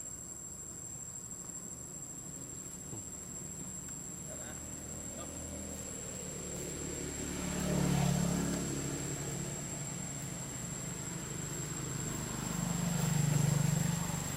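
Engines of passing motor vehicles, swelling to a peak about halfway through and again near the end, then fading. A steady high insect drone runs underneath.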